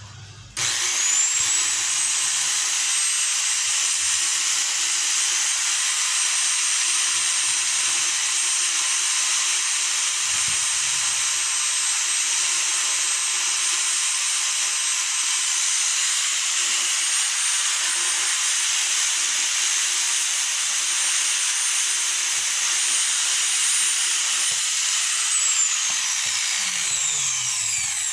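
Brushed electric power tool motor switched on, spinning up with a rising whine to full speed and running steadily, then switched off and winding down near the end.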